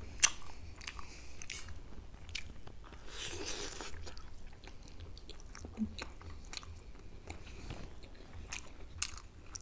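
Close-up eating sounds: chewing and biting on a curried chicken leg piece with rice, with many short wet mouth clicks and smacks. A short hissing noise comes about three seconds in.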